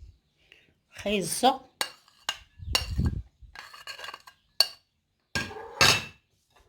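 Cutlery and dishes clinking and knocking several times against a mixing bowl as grated carrot is added to a minced-meat (kefta) filling.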